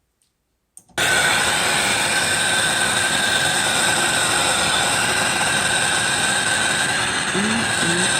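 Plumbing torch lit for soldering copper pipe: a loud, steady flame hiss that starts suddenly about a second in. A few faint low sliding tones come in near the end.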